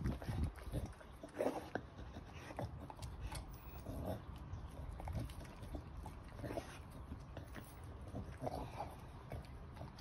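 Staffordshire bull terrier puppy gnawing and chewing a raw pork trotter, in irregular short bursts with sharper clicks of teeth on bone.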